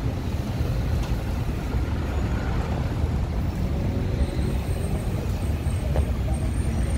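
City street traffic: a steady low rumble of vehicles passing on the road.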